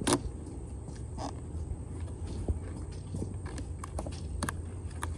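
Scattered short clicks and scrapes of a plastic WeatherTech in-channel window visor being pushed and slid into a truck door's window channel against the rubber weatherstrip, coming more often near the end, over a steady low hum.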